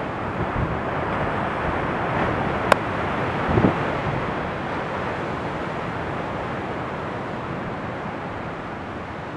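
Wind buffeting the microphone over surf breaking on a shore: a steady rushing noise that eases slightly toward the end. A sharp click comes about three seconds in, and a brief low gust follows shortly after.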